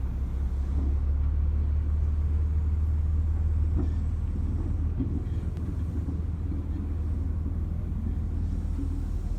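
DD55 diesel shunting locomotive running with a steady low engine rumble as it hauls a rake of train cars, with a few faint clicks from the wheels on the track.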